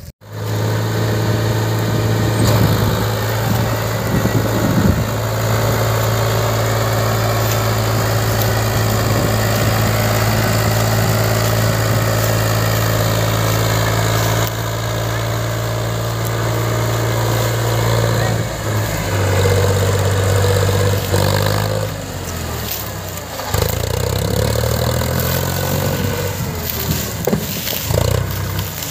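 HMT farm tractor's diesel engine working under the heavy load of a piled sugarcane trailer. It runs steadily for most of the time, then from a little past the middle it is revved up and down repeatedly.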